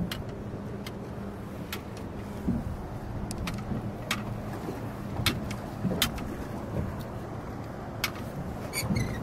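Steady low rumble of wind and water around a small open fishing boat, with sharp knocks and clicks about every second and a faint steady hum.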